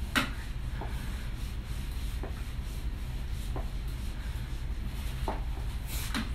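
Gloved hand and the steam head of a vertical garment steamer brushing and rubbing against a hanging shirt, about six short strokes with the loudest right at the start, over a steady low hum.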